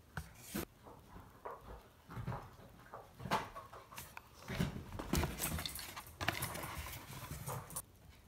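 Cardboard and paper product boxes handled in and against an open cardboard shipping box: irregular taps, scrapes and rustling, busiest in the second half.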